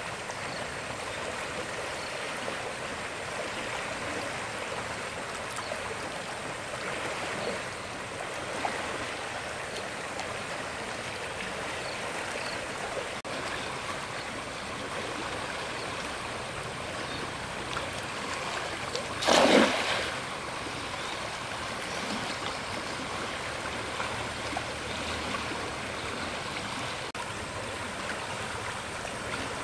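Stream water running steadily, with one brief loud noise about two-thirds of the way through.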